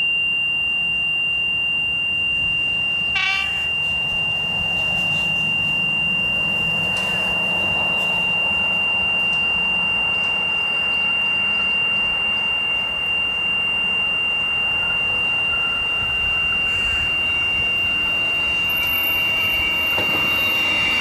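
Metro Trains Melbourne X'trapolis 100 electric multiple unit approaching and passing, with a short horn toot about three seconds in and its running and wheel noise growing louder near the end. A steady high-pitched electronic tone sounds underneath.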